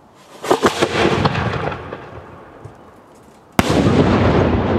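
Display fireworks going off: two sharp cracks with a rushing hiss in the first second that slowly fades, then a single loud aerial shell burst about three and a half seconds in, followed by a long rumbling echo.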